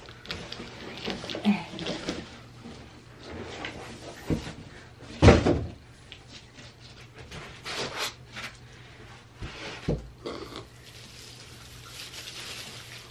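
Large cardboard box being opened, its lid worked off and lifted: cardboard scraping and rustling with scattered knocks, the loudest about five seconds in.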